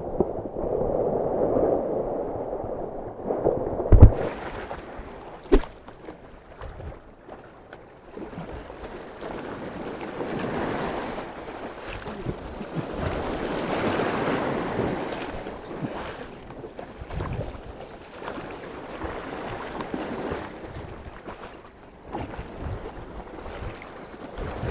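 Shallow sea waves washing and breaking over rocks, with wind on the microphone. For the first four seconds the sound is muffled, with the microphone at the water line, and a sharp thump comes about four seconds in.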